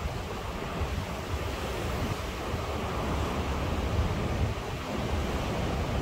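Ocean surf washing steadily onto the shore, with a breeze buffeting the microphone in low gusty rumbles. The wash swells a little about halfway through.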